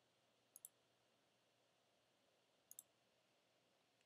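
Faint computer mouse clicks over near silence: two quick double clicks, about two seconds apart, as points are set with a drawing tool.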